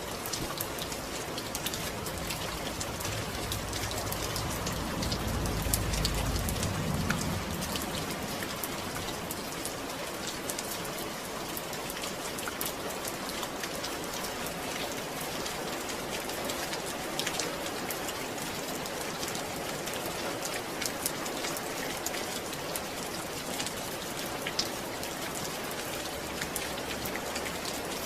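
Steady rain falling: an even hiss with many scattered, sharp drop ticks. A low rumble swells and fades about five to seven seconds in.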